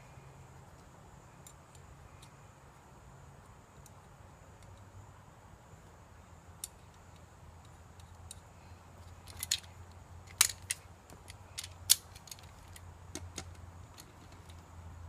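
Small metal parts and tools clinking together as they are handled. The first half is quiet, then a run of sharp clicks and clinks comes in the last several seconds, two of them much louder than the rest.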